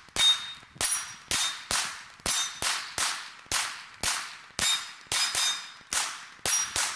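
A 9mm semi-automatic pistol fired at a steady pace, about sixteen shots at roughly two a second. Many shots are followed by the high ping of a steel plate target being hit.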